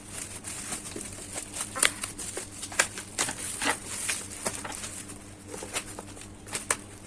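Packaging being handled while a boxed book is unpacked: scattered light clicks and rustles at irregular intervals, over a faint steady hum.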